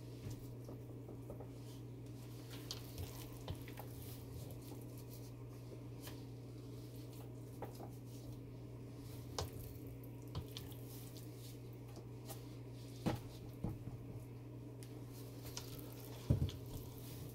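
Thick hot-process soap batter being spooned into a silicone-lined wooden loaf mold: scattered soft knocks, taps and scrapes of the spoon against the mold and the batter, the loudest about thirteen and sixteen seconds in, over a steady low hum.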